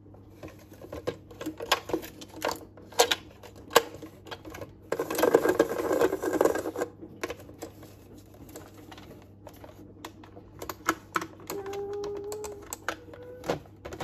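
Plastic toy washing machine being handled: irregular clicks and knocks of its plastic body and buttons, with a louder, denser noisy stretch of about two seconds near the middle and a short steady tone a little before the end.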